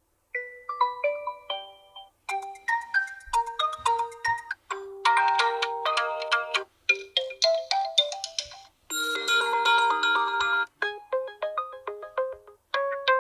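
OPPO A1K smartphone's built-in alarm tones previewed one after another: short electronic chime and plucked-note melodies, each cut off after one to two seconds when the next one starts, about seven in a row.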